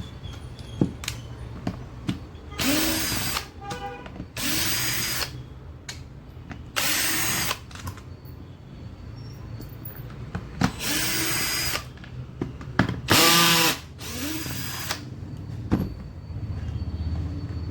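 Electric finishing sander switched on in short bursts of about a second, six times, each burst spinning up quickly and then stopping. A steady low hum runs underneath between the bursts.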